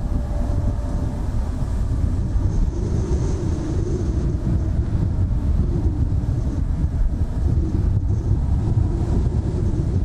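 Strong wind buffeting the microphone as a steady low rumble, over the distant running of a jet aircraft's engines, with a faint high whine about three seconds in.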